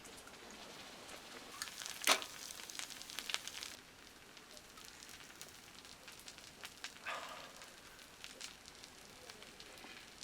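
Fire crackling, with a faint hiss and scattered sharp pops; the loudest pop comes about 2 seconds in and another near 7 seconds.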